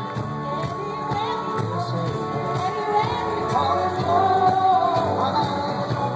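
Live band playing with a voice singing over it, recorded on a phone's microphone in the crowd.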